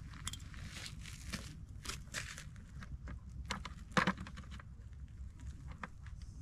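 Plastic bag in a bucket rustling and crinkling as a caught trout is handled into it, with scattered clicks and scuffs and one sharp knock about four seconds in, over a steady low rumble.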